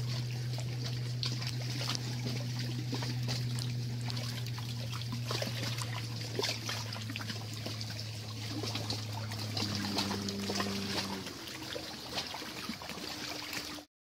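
Trickling water, with a low steady hum underneath that steps up in pitch twice near the end.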